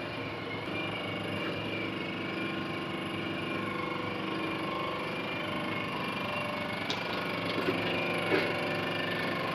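Steady mechanical hum of running machinery, with a few light clicks and knocks near the end.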